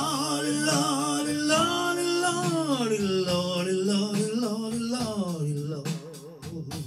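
A man singing a long wordless blues vocal line, holding a note, sliding down in pitch twice and fading out with a waver near the end, with the acoustic guitar only faint underneath.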